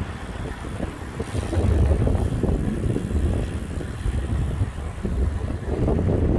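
Wind buffeting a moving microphone: an uneven, gusty low rumble that grows louder about a second and a half in.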